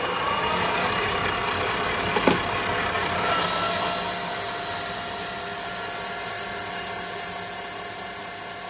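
Colchester Student lathe with a 3-horsepower motor, its spindle whine rising at the start, with a single knock a little over two seconds in. From about three seconds in, a carbide insert takes a heavy 2.5 mm roughing cut in hardened 17-4 PH stainless steel, adding a steady high whine over the machine's running noise as the motor works at full load.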